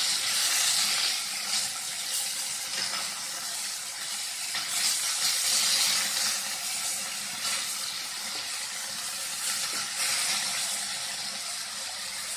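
Fish steaks shallow-frying in oil in a non-stick pan: a steady sizzle that swells louder a few times as the pieces are turned over with a wooden spatula.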